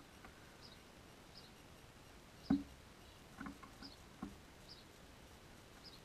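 House sparrow pecking at seed on a wooden seat: one sharp tap about two and a half seconds in, then a few softer taps over the next two seconds. Faint high chirps of a bird repeat about once a second.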